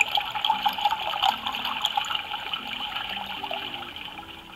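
Tayo robot gas station toy playing its refuelling sound effect through its small speaker: a watery, crackling pouring sound that starts suddenly and fades slowly away.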